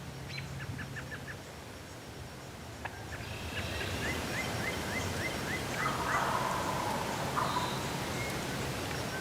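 Wild turkey calling: runs of short, evenly spaced yelping notes, then a louder, rattling gobble about six seconds in.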